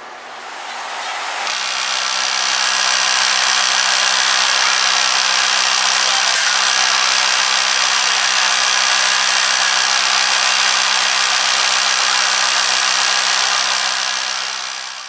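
Wood lathe running while a skew chisel planes a pine spindle into a cylinder: a steady loud hiss of cutting over a constant motor hum. It builds up over the first two seconds and dies away near the end.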